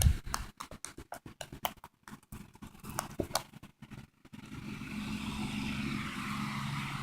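Sticky slime being squeezed and pulled, giving a quick run of wet clicks and pops. About four seconds in the clicking stops and a steady low hum takes over.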